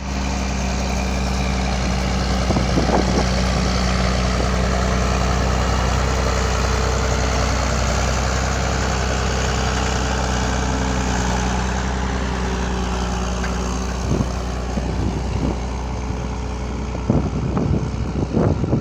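Massey Ferguson 2680 tractor's diesel engine running steadily under load while ploughing. Gusts of wind buffet the microphone near the end.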